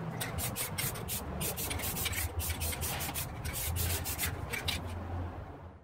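Rust-Oleum aerosol spray paint can in use over the rifle: a quick, irregular run of short strokes, several a second, that cuts off suddenly just before the end.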